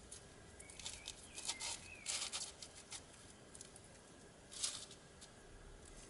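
Frozen pineapple chunks on a 2x2 puzzle-cube core scraping and crackling as the layers are twisted by hand. The faint rustling scrapes come in clusters, the loudest about two seconds in, with another short one later.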